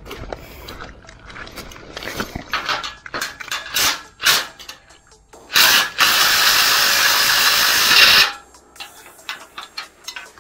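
Makita TD171D 18V cordless impact driver hammering on a rusted bolt in a steel bracket: a short first pull of the trigger, then about two seconds of steady hammering. Before it, scattered knocks and clinks.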